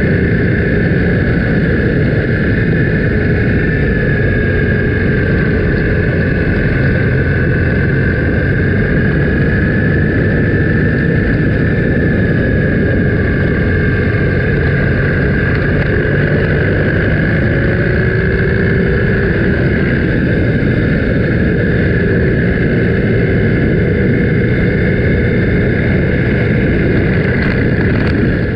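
Motorcycle engine running on the move, its pitch drifting slowly up and down, under a steady rush of wind and road noise on the onboard microphone.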